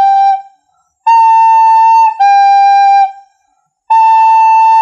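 Recorder playing two notes in turn, A then G, each held about a second with a slight step down in pitch between them. A G note ends just after the start, then A and G sound with short breaks between them, and A sounds again near the end.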